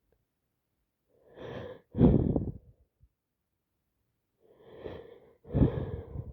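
A person sneezing twice from an allergy attack, each sneeze a quick drawn-in breath followed by a louder burst, about three and a half seconds apart.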